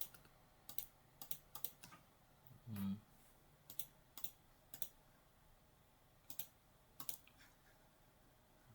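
About a dozen sharp, irregularly spaced computer mouse and keyboard clicks at a low level. About three seconds in comes a brief low thump, the loudest sound here.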